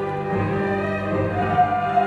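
Orchestral music with long held notes.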